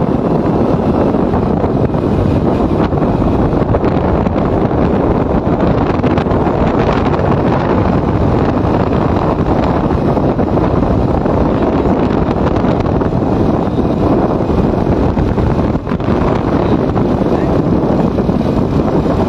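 Steady wind buffeting the microphone on a moving motorcycle, with engine and tyre noise running beneath it. There is one brief dip in loudness near the end.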